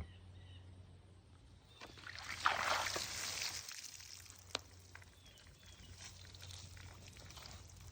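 Water poured and splashed over freshly sawn black walnut boards to bring out the grain, a faint pour lasting about two seconds, followed by a single sharp click.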